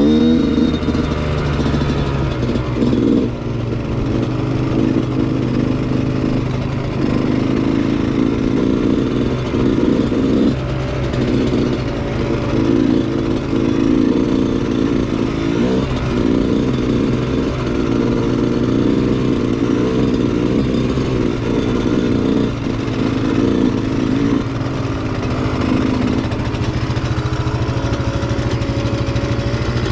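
Off-road vehicle engine running on a trail, the throttle opened and eased off again and again every few seconds.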